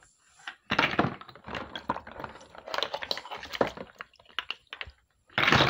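Wet giant African snail (Achatina marginata) shells clacking and scraping against each other and a plastic bowl as they are handled, a run of irregular knocks and clicks with a louder rattling scrape near the end.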